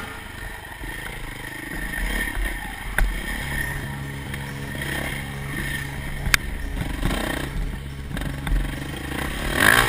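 Dirt bike engine heard from the rider's helmet, running at low to moderate revs as it climbs rocky single track, with its pitch rising and falling. There are two sharp knocks as the bike goes over rocks, and it gets louder near the end.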